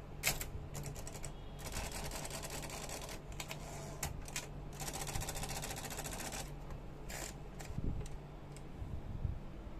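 Brother Deluxe 550TR typewriter in use: single key strikes, and two longer runs of rapid, buzzing mechanical clatter, from about a second and a half to three seconds in and from about five to six and a half seconds in. The clatter thins to a few clicks in the last seconds.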